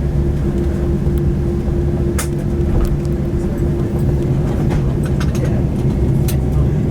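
Steady engine and airframe rumble inside an Airbus A320 cabin, with a constant hum and a few light clicks and rattles.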